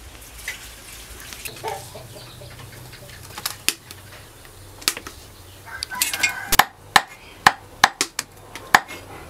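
Cleaver chopping a whole catfish on a round wooden chopping block: sharp knocks, about six of them in the last three seconds, each a little under half a second apart.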